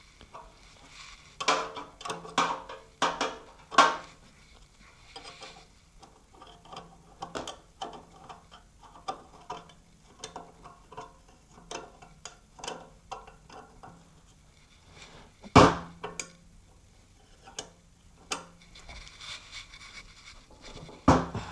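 Combination wrench clinking and tapping against the metal crankcase of a 1944 Briggs & Stratton Model B engine while the oil pump is bolted in. It is a run of light metallic clicks, with a few louder clanks in the first few seconds and one heavy knock past the middle.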